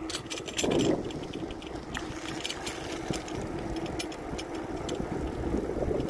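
Bicycle rolling along a grooved concrete road: a steady rumble of tyres and wind with scattered irregular clicks and rattles from the bike, and a brief louder rumble just under a second in.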